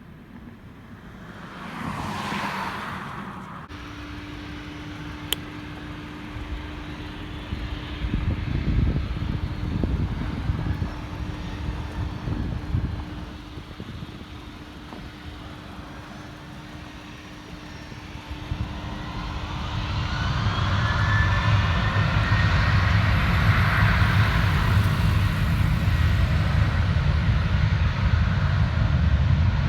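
Jet airliner engines rumbling, growing louder from about two-thirds of the way through, with a rising whine near the end. A brief whoosh sweeps past near the start.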